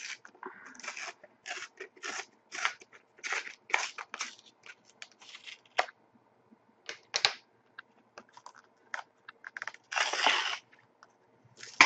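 A Panini Zenith Dare to Tear card being torn apart by hand to get at the card sealed inside: a string of short ripping, crunching tears of card stock, with a longer rip near the end.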